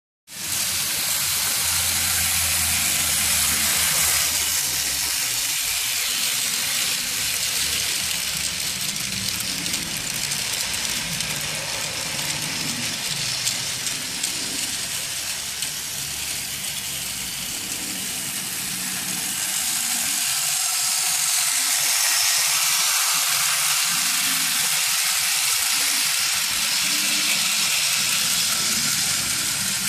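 Model railway train, a Krokodil electric locomotive hauling coaches and wagons, running on its test run: a steady noise of motor and wheels on the track, a little louder later on as the train comes close past.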